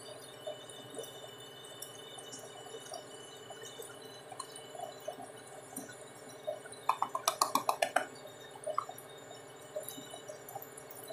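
A small box of powder tapped against the rim of a stainless steel mixing bowl: a quick run of about ten light metallic clinks lasting about a second, around seven seconds in, over a steady low background hum.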